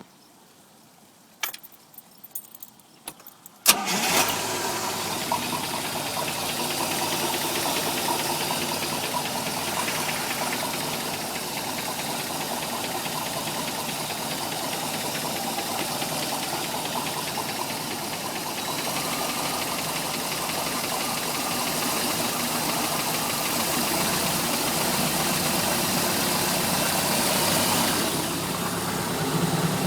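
Mercruiser 3.7 four-cylinder marine engine starting: a few sharp clicks, then it catches about four seconds in and runs steadily at idle. The owner hears a mysterious ticking noise from this engine between idle and 1000 rpm, though it starts and runs fine.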